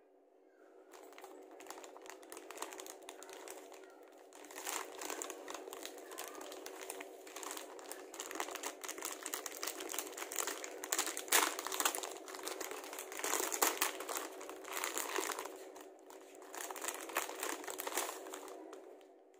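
Plastic wrapper of a pack of cheese crackers crinkling as it is pulled open by hand, with the plastic tray inside rustling as it comes out. The crinkling comes in uneven spells, loudest around the middle.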